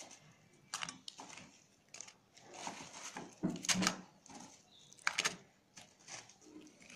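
Fried bread pieces set down one by one in a non-stick pan: light, irregular taps and scrapes, a second or so apart.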